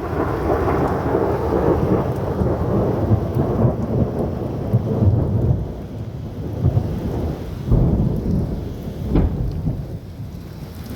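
A long roll of thunder rumbling over rain, strongest in the first half and then rising and falling as it rolls on.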